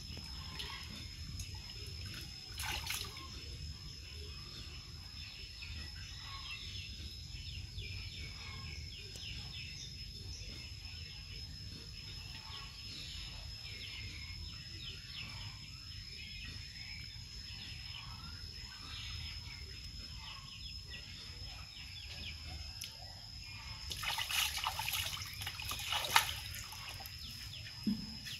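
Water sloshing and trickling in a plastic tub as a baby monkey is washed in it, with louder splashing about three seconds in and again near the end. A steady high-pitched whine runs underneath.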